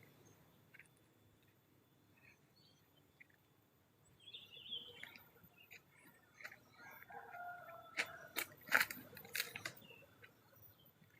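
Faint bird calls: short chirps, then a few held notes. Near the end come several sharp cracks, like twigs snapping underfoot in undergrowth.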